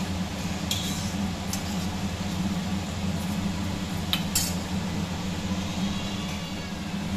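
A steel spoon clinks against a steel cooking pan a few times, once about a second in and twice close together around four seconds in, over a steady low hum.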